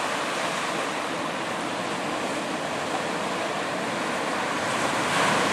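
Steady rush of wind-driven ocean surf, swelling a little near the end.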